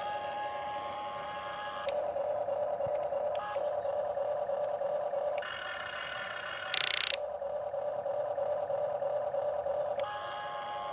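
Huina remote-control excavator's electric motors whining steadily as the cab swings and the boom and bucket move. The pitch and loudness shift in steps as each function starts and stops, with a brief harsh rasp about seven seconds in.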